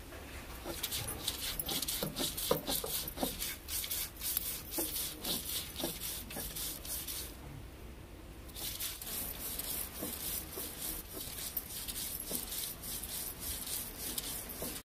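Stone roller rubbed back and forth over a flat grinding stone (ammikkallu), wet-grinding grated coconut with cumin and peppercorns into a paste: a run of rough scraping strokes, with a brief lull about halfway through.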